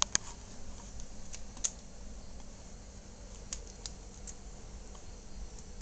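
A dog's claws clicking on a hardwood floor: a few light, irregularly spaced taps over a quiet background.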